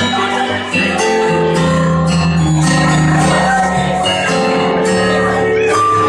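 Live music played at a piano, a run of held notes changing pitch every second or so.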